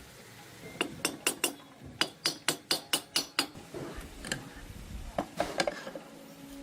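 Sharp metallic taps and clinks of hand tools on engine parts. First comes a quick run of about a dozen, roughly four a second, then a few scattered ones.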